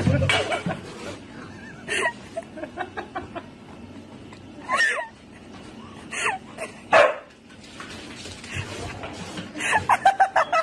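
Siberian husky giving short barks and yips, a few scattered ones and then a quick run of them near the end.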